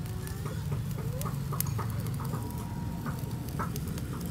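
Chickens clucking in short calls over a steady low hum, with scattered light clicks.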